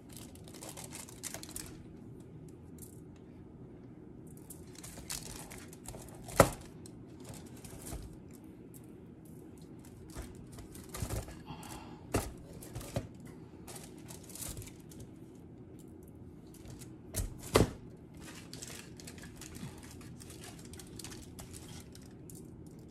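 Salt grinder being twisted over spaghetti squash halves, in short runs of fast, gritty clicks. Foil crinkles in between, and there are three sharp knocks, the loudest about six seconds in.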